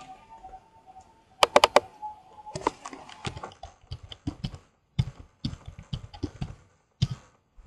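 Computer keyboard typing in short runs of keystrokes, after a quick cluster of clicks about a second and a half in. A faint melody of held notes fades out during the first two seconds.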